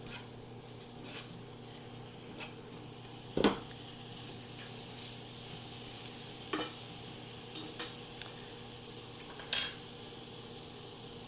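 A spoon clinking and scraping against a dish while stirring food, in scattered strikes with the loudest about three and a half seconds in, over the steady hum of a running microwave oven.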